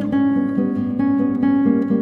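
Instrumental background music: an acoustic guitar plucking and strumming chords, with new notes several times a second.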